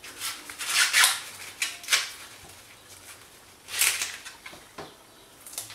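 Green husks being ripped and pulled off an ear of fresh corn by hand: about five short tearing, rustling strokes, the loudest about a second in and near four seconds in.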